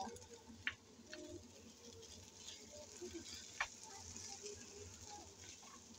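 Faint stir-frying: a spatula tossing cooked noodles and vegetables in a nonstick frying pan, with a few light clicks of the spatula against the pan.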